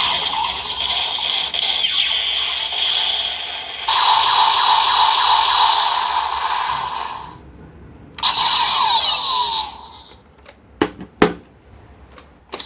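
Kamen Rider Zero-One toy transformation belt playing electronic sound effects through its small speaker, the hidden advanced-form sounds unlocked on it. The sound stops abruptly about seven seconds in, a shorter burst of the same sound follows, and two sharp clicks come near the end.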